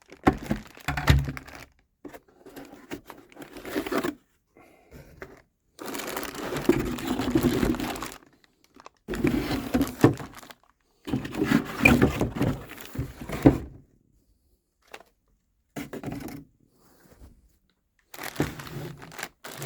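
Packaging crinkling and rustling as parts are unpacked and handled, in bouts of a second or two with quiet gaps between.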